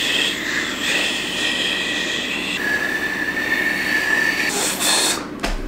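Attempted finger whistle: a rush of breath blown over two fingers in the mouth, with thin, wavering whistle tones coming through the air noise. About two and a half seconds in, the tone drops to a single lower pitch, and a brighter burst of air comes near the end.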